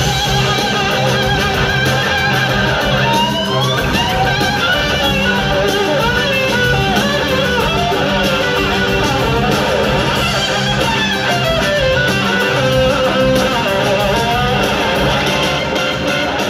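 Live blues-rock band playing an instrumental break, led by an electric slide guitar whose notes glide up and down over a steady bass and rhythm section.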